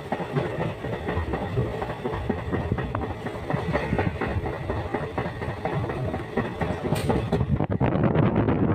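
Steady rumbling and rattling of a moving vehicle, with rapid small clicks running through it; about seven seconds in, the high hiss drops away and the sound changes character.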